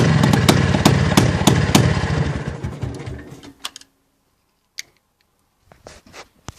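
IZh Planeta 5 motorcycle's single-cylinder two-stroke engine running with no mufflers on its twin exhaust pipes, a loud rough beat with sharp cracks. It fades out over about a second and a half, gone about three and a half seconds in, leaving only a few faint clicks.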